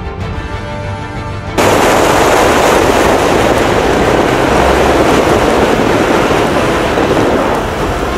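Music, cut off about a second and a half in by a loud, steady rushing noise, with the music still faint beneath it: wind and road noise from a moving vehicle.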